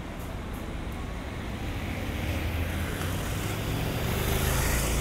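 City street traffic: a car drives past close by, its engine rumble and tyre noise growing louder toward the end.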